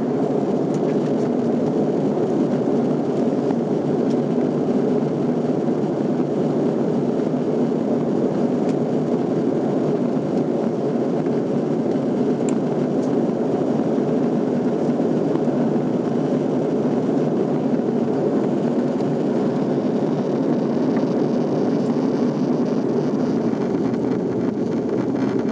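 Steady cabin noise of an Airbus A340 airliner in flight: an even, low rushing hum of engines and airflow heard from inside the cabin, unchanging throughout.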